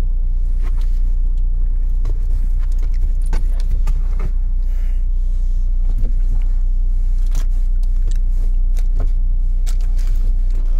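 Steady low rumble inside a car's cabin, with scattered light clicks and rattles.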